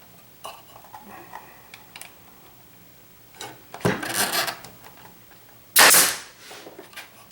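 Nail gun firing twice, about two seconds apart, driving nails into a wooden drawer divider; the second shot is the louder, each with a short hiss after it.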